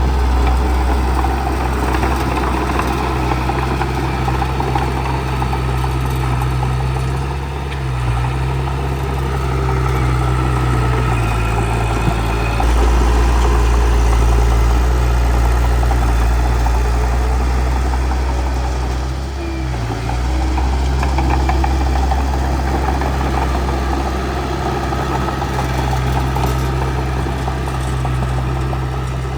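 Bulldozer's diesel engine running steadily under load. Its low pitch drops and rises a few times, around a third of the way in and again near two-thirds.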